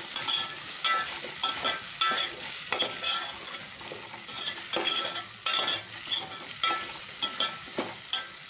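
Metal spoon scraping and clinking against a metal cooking pot at irregular intervals, stirring vegetables frying in oil, with a steady sizzle underneath.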